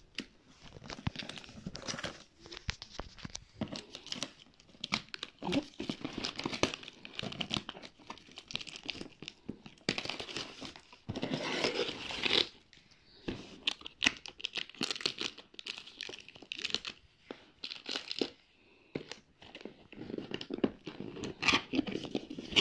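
Irregular crinkling, rustling and tearing as silver plastic gift ribbon is pulled and torn off a cardboard box, with scraping and knocks of the box being handled.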